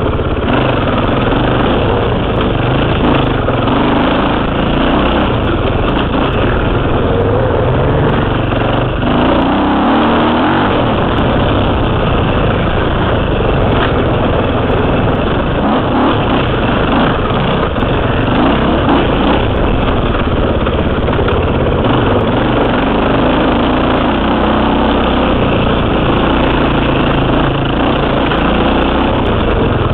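KTM 300 two-stroke dirt bike engine running continuously, its revs rising and falling as it is ridden along a trail.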